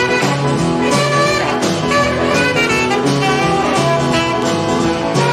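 Background jazz music with saxophone and brass playing a melody over a walking bass line.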